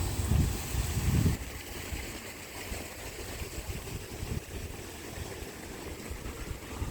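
Wind buffeting the microphone in heavy low gusts for the first second or so, then easing to a lighter steady outdoor hiss.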